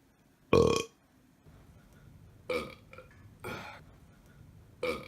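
A person belching: one loud, short burp about half a second in, followed by three shorter, quieter belch-like sounds.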